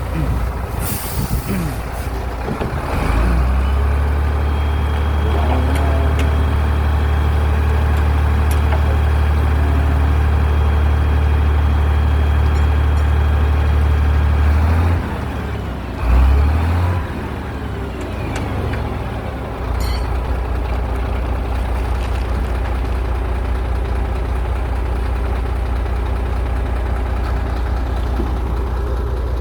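Heavy diesel construction machinery running with a low, steady engine drone. The engine note rises a few seconds in, drops off about halfway, gives a short loud surge, then settles into a lower steady run.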